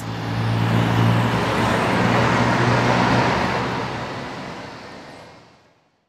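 Road traffic: a motor vehicle's engine hums steadily over tyre and road noise, then fades away to silence near the end.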